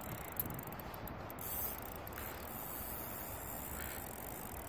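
Faint steady outdoor background hiss with a few light ticks and clicks in the first second and a half.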